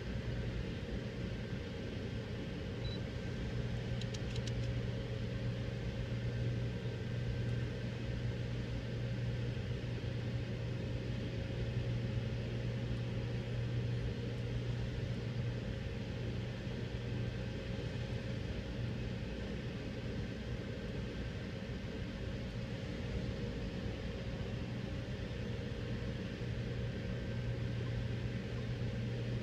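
Steady low hum and rumble of a car idling, heard from inside the cabin, with a faint even wash of noise over it.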